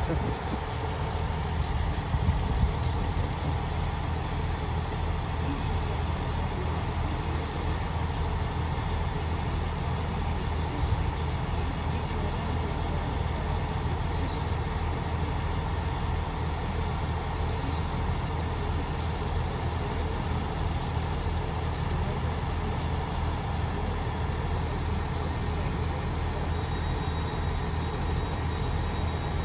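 Class 158 diesel multiple unit coming to a stand in the first few seconds, then standing with its underfloor diesel engines idling in a steady low hum.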